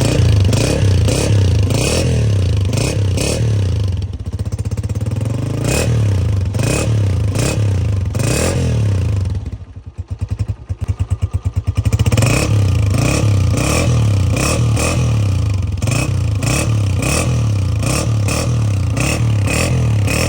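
Honda 125 motorcycle's single-cylinder four-stroke engine running through its stock silencer, the throttle blipped over and over so the revs rise and fall; the revs sag briefly about halfway through before the blipping picks up again. The stock silencer gives a deep, bassy exhaust note with no whistle.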